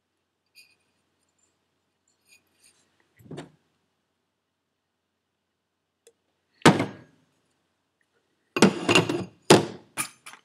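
Metal turbo parts and tools being handled and set down on a workbench: a soft thump about three seconds in, a sharp knock a few seconds later, then a quick run of loud knocks and clanks near the end.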